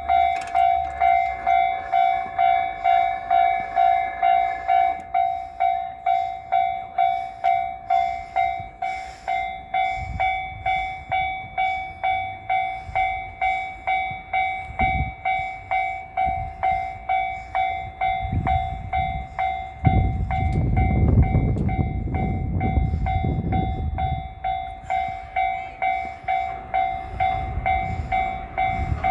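Japanese railway level-crossing warning bell ringing in a steady repeating clang, about one and a half strikes a second, with a second, higher alarm tone over it for the first few seconds. A train passes over the crossing: wheel clacks come in partway through, and a loud rumble of the train takes over about two-thirds of the way in.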